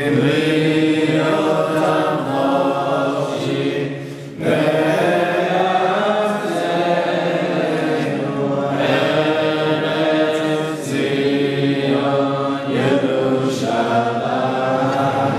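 Voices singing a slow, chant-like melody, with a short break about four seconds in.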